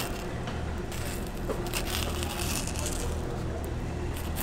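Fillet knife working a cero mackerel fillet off the backbone, with a few faint scrapes and ticks as the blade runs along the bones, over a steady low hum.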